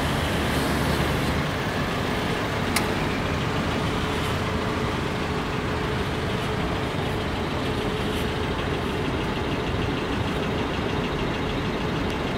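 Steady road-traffic rumble, with a single sharp click about three seconds in.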